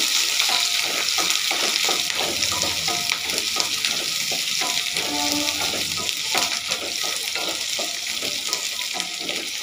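Shallots, garlic, ginger and dried red chillies sizzling steadily in hot sesame oil in a pan, with a spatula stirring and scraping them in short, irregular strokes.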